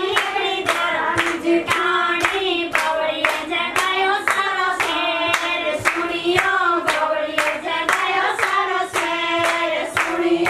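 Women singing a traditional Haryanvi folk song with no instruments, while the group claps hands in a steady rhythm to keep the beat.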